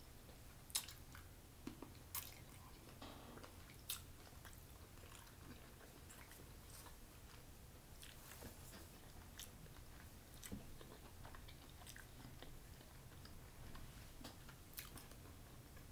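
Faint close-up eating sounds: a person chewing a mouthful of sausage, with soft mouth clicks and smacks every second or few.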